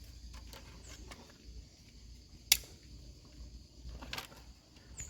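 Scattered light clicks and knocks, with one sharp crack about two and a half seconds in, over a steady high chirring of insects.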